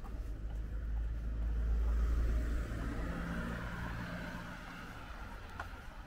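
A car driving past on the street: its engine and tyre noise swell to a peak about two seconds in, then fade away.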